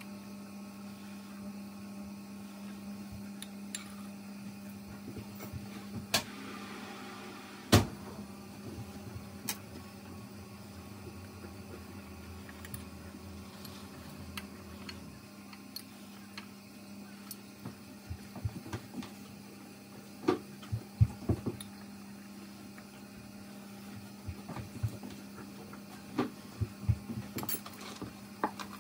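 Teaspoon stirring tea in a china mug, with scattered clinks and taps against the mug, the sharpest about eight seconds in and more of them in the second half. A steady low hum runs underneath.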